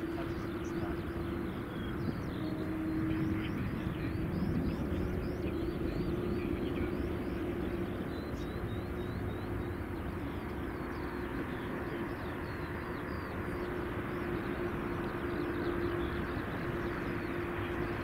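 Airbus A380 jet engines rumbling during landing and rollout, with a steady hum under the noise; the noise grows fuller and brighter in the second half.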